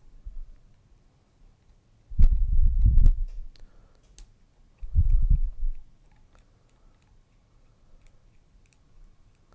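Small clicks and ticks of two hex drivers working the tiny spindle bolt of a model helicopter's rotor head, with two low, muffled stretches of handling sound about two and five seconds in.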